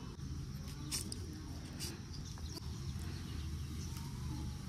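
Quiet outdoor background noise, a steady low rumble with a few faint light clicks.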